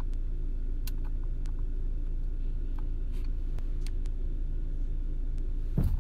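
Car running, heard from inside the cabin: a steady low rumble with a few faint clicks, and a brief thump near the end.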